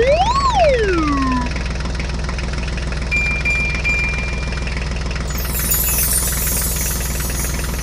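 A diesel-type engine idling steadily, an engine sound effect laid over a hand-pushed toy tractor. Near the start a whistle glides up and back down, and a thin high beep sounds briefly in the middle.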